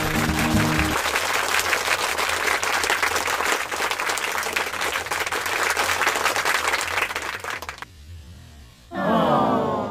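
Applause: a dense patter of many hands clapping, with a music track fading out about a second in. The clapping stops abruptly near the end, and is followed by a short call that falls in pitch.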